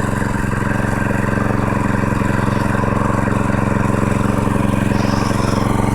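Harbor Freight Predator 212cc single-cylinder four-stroke engine running steadily, smooth on freshly changed oil.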